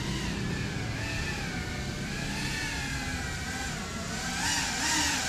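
GEPRC CineLog35 cinewhoop drone flying, the whine of its motors and ducted propellers wavering up and down in pitch with the throttle, growing louder near the end.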